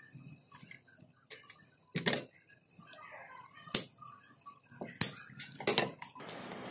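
Kitchen scissors snipping through a strip of dried fish fillet wrapped in a seaweed sheet: a few sharp snips, with light crackling of the dry seaweed between them.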